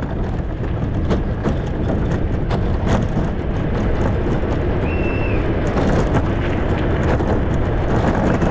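Onboard sound of an engineless soapbox car rolling downhill, its wheels and body rumbling and rattling over rough asphalt as it gathers speed, growing slightly louder. A short high whistle sounds about five seconds in.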